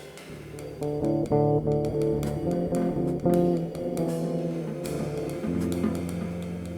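Bass and drum kit duo playing an instrumental jazz tune: the bass plucks a run of melodic notes while the drums add light hits and cymbal strokes.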